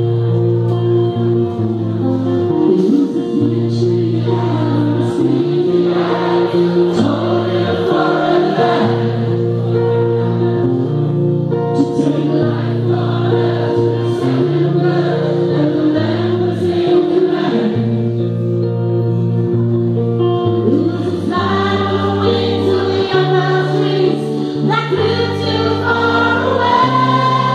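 A live rock band playing, with long held chords and a steady bass line under a woman singing lead.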